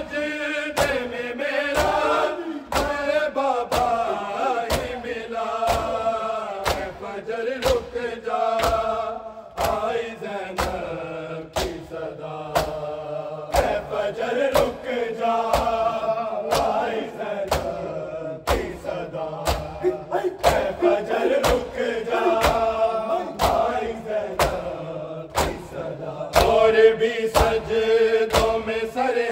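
Men's voices chanting a noha (Urdu mourning lament) over a steady beat of hands slapping bare chests in matam, with the strikes landing together in an even rhythm.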